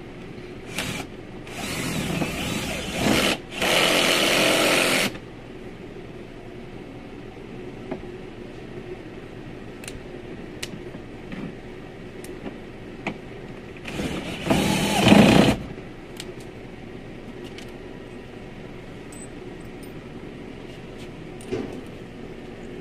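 Cordless drill-driver driving screws into a plastic door trim panel in short runs: a brief burst just under a second in, two longer runs of a second or so between about two and five seconds in, and another about fourteen seconds in, with light clicks between.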